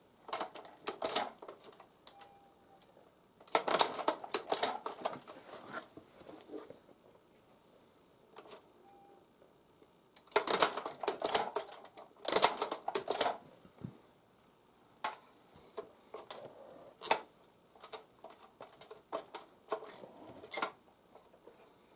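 Tippmann Boss hand-lever leather sewing machine clacking in several short bursts of stitching with pauses between, then scattered single clicks. The owner says the machine has been binding up and breaking thread, and suspects it is worn, dirty or out of adjustment.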